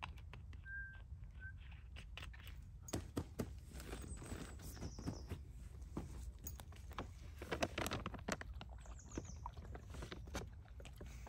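Irregular crunching and rustling in dry fallen leaves as a German shepherd walks over and noses into a foil food pouch, mixed with the crinkle of the pouch and a plastic water bottle being handled.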